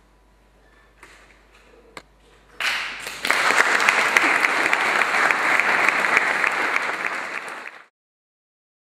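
Audience applauding at the end of a stage performance, breaking out about two and a half seconds in and cut off abruptly near the end. Before it, a quiet hall with a single faint knock.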